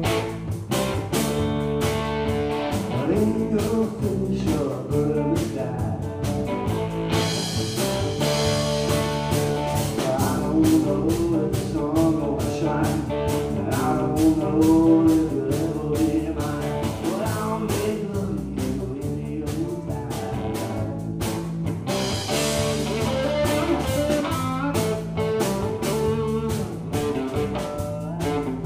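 Live band playing a blues-rock groove: electric guitars over a drum kit.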